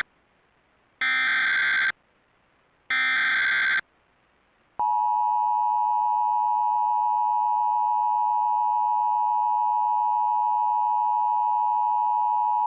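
Emergency Alert System broadcast tones: two screechy digital bursts of SAME header data, each about a second long with a second's gap between them. After a short pause comes the steady two-tone EAS attention signal, held unbroken for about eight seconds. Together they signal the start of an emergency alert, here a tornado warning.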